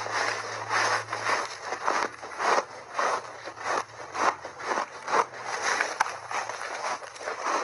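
Close-miked crunching and chewing of refrozen block ice layered with mixed berries, about two crisp crunches a second.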